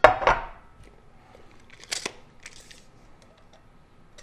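A heavy cast iron skillet set down on a plastic cutting board with a loud knock, followed about two seconds later by a few sharp clicks from a tape measure being run out across the pan.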